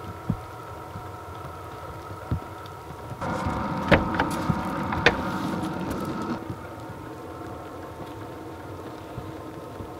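Diesel heater running with a steady hum, its fuel pump giving single low ticks about two seconds apart. A louder, noisy stretch with a few sharp knocks comes in the middle.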